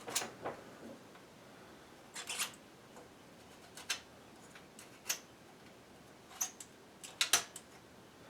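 Scattered sharp clicks and taps, about eight spread unevenly, from working the controls of a vintage Lasko box fan whose motor gives no hum at all. The silent motor is a sign that it is seized and, in the owner's view, either burnt out or shorted.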